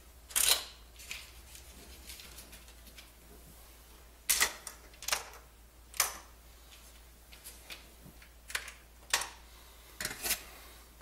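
About eight sharp clicks and light taps, spread out and irregular: metal screws being picked from a plastic parts tray and set into the screw holes of a Coleco Adam computer's plastic case.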